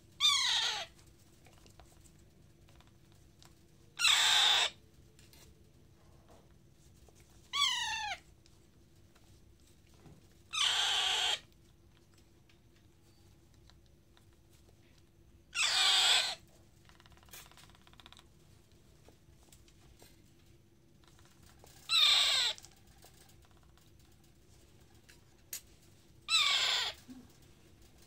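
Parakeet chick giving harsh begging calls while being spoon-fed, asking for more food. There are seven short calls a few seconds apart, several of them falling in pitch.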